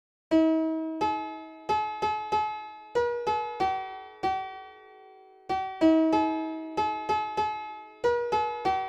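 Gismart piano app on a phone playing a slow melody one note at a time, each note struck cleanly and fading away, with a short pause just after the middle.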